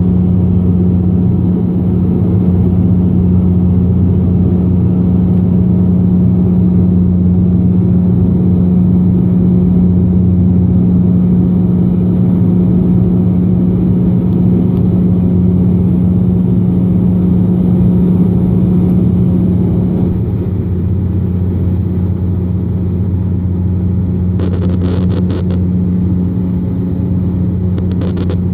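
Cabin drone of a Bombardier Q400 turboprop climbing after takeoff: a steady low propeller hum with a deeper tone beneath it, easing slightly about twenty seconds in. A few short clicks near the end.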